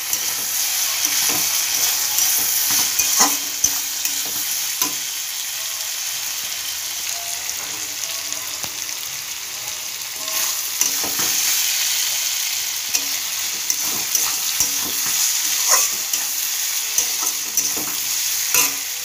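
Spiced potato strips sizzling in a metal wok, a steady frying hiss, with a spatula scraping and clicking against the pan now and then as they are stirred.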